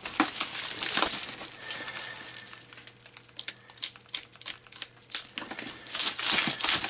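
Plastic shrink wrap crinkling and crackling as hands work it loose and pull it away, in an irregular run of crackles that are loudest at the start and again near the end.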